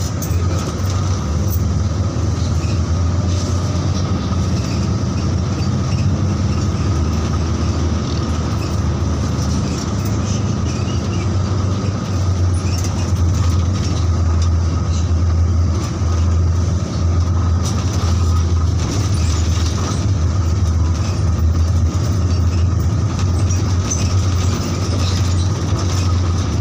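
King Long bus heard from inside the cabin while driving: a steady low engine drone with tyre and road rumble, and a faint steady high whine over it.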